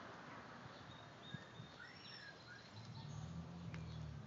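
Faint backyard ambience: distant birds chirping a few times, with a low hum that comes in about three seconds in and then fades.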